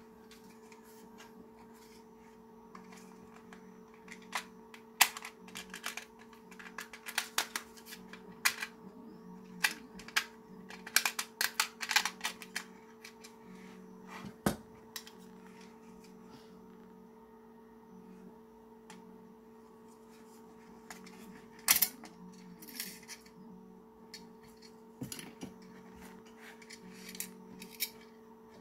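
Grey 3D-printed plastic parts of a pen holder being handled and fitted together: irregular clicks and taps of hard plastic knocking together and set down on a table, in two clusters, over a steady low hum.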